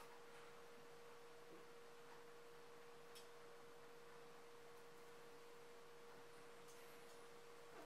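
Near silence with a faint, steady, unchanging hum at one pitch.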